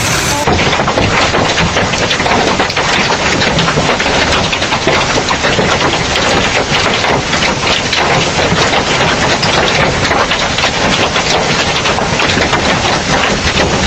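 Hailstones pelting a hard surface in a dense, steady clatter of countless small impacts.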